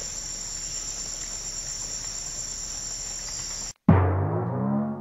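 Steady high-pitched chorus of insects. It cuts off suddenly near the end and a loud pitched sound begins, its pitch bending upward.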